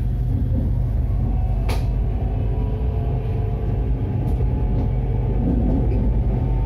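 Running noise of an SRT Red Line electric commuter train heard from inside the carriage: a steady low rumble with a faint steady whine over it. A single sharp click comes about two seconds in.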